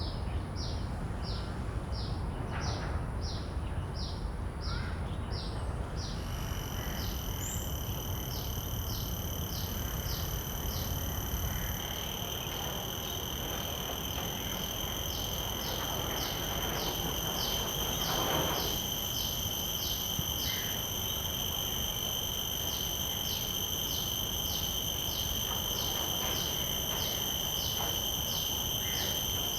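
Cicadas calling: one gives a rhythmic pulsed call at about two pulses a second, and about six seconds in another starts a steady, high-pitched whine that continues alongside it.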